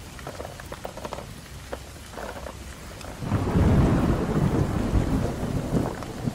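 Popcorn being spooned out of a plastic bowl into a plastic tub. It starts with light scattered ticks, then about three seconds in becomes a loud rattling rush as a mass of popcorn tumbles into the container.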